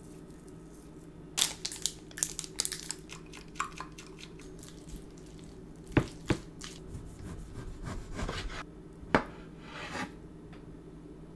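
Food preparation by hand: imitation crab sticks are torn apart and squished together with mayonnaise in a ceramic bowl, then a kitchen knife works on a cutting board. There are small clicks and a few sharp knocks, the loudest about six and nine seconds in, over a steady low hum.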